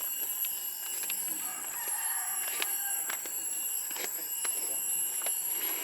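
Steady high-pitched shrilling of forest insects, with scattered sharp clicks over it.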